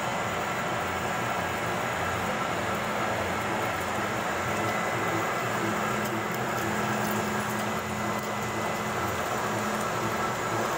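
Metal lathe running, cutting a thread along a rotating steel shaft: a steady machine hum.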